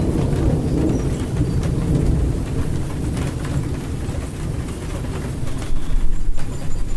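Rain falling, with scattered raindrop ticks over a low thunder rumble that eases through the middle and swells again near the end. A few faint, short, high bird chirps come through.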